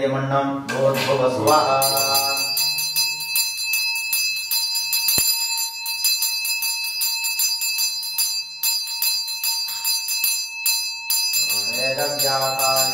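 Brass hand bell (puja ghanta) shaken continuously, its clapper striking many times a second, giving a bright, sustained ringing. The ringing starts about two seconds in and carries on to the end.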